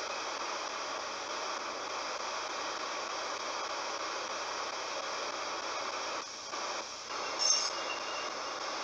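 Ghost box (spirit box) radio hissing with steady static as it sweeps the band. The hiss drops out twice in quick succession about six seconds in, followed by a short high-pitched blip, the loudest moment.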